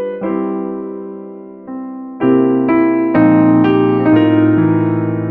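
Background piano music: slow chords, each struck and left to fade, growing fuller and louder about two seconds in.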